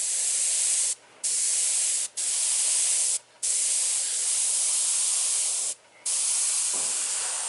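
Airbrush spraying paint: a steady hiss of air and paint, cut off briefly four times as the trigger is let off between passes.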